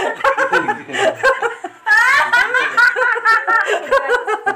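A man laughing heartily, a belly laugh of quick repeated pulses, breaking off briefly about two seconds in and then laughing on.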